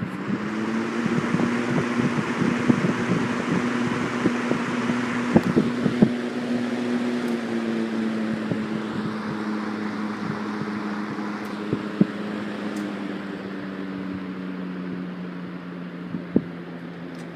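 Hunter box fan running steadily: motor hum under rushing air, with a few faint ticks and no rattle, after a repair that added a spacer. The hum drops slightly in pitch and level in the second half.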